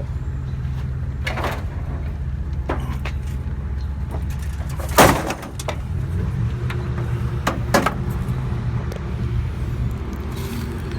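A vehicle's engine running steadily with a low hum, with a few light knocks and one loud thump about five seconds in.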